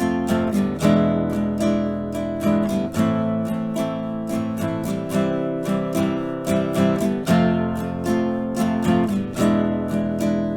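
Fabio KM3915 WH nylon-string classical guitar with a linden body being strummed in a rhythmic pattern of full chords, several strokes a second.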